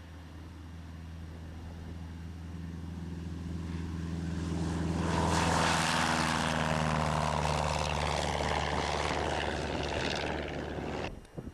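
Light propeller airplane flying past, most likely the rebuilt 1940 Funk: its engine drone grows louder, peaks about halfway through and drops in pitch as it passes, then cuts off abruptly near the end.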